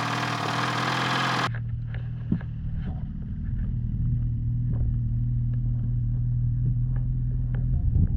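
Two-stroke snowmobile engine idling steadily. About a second and a half in, the sound abruptly turns duller, losing its hiss.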